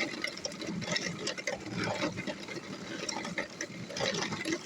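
A push lawnmower being rolled over pavement, its wheels and body rattling and clattering unevenly.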